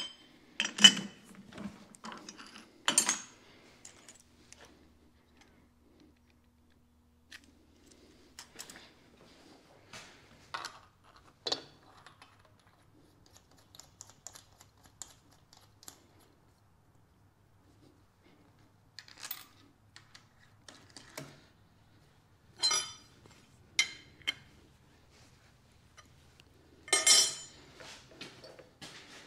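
Scattered metallic clinks and clanks of steel tools and parts being handled while studs on a shaper fixture plate are worked on, loudest a few seconds in and near the end, over a faint low hum.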